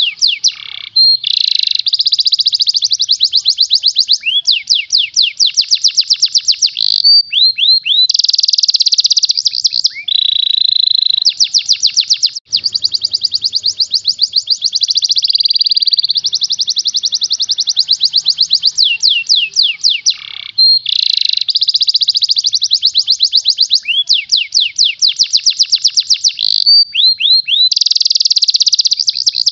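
Domestic canary singing a continuous, fast song of tightly packed trills and rolls, switching to a new repeated phrase every second or two with only brief breaks.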